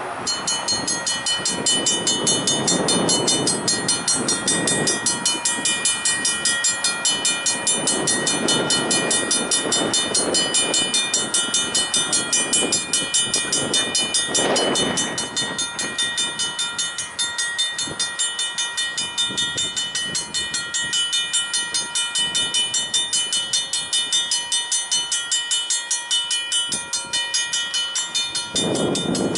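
Grade-crossing bell ringing rapidly and continuously, starting abruptly, over the rumble of a passing locomotive.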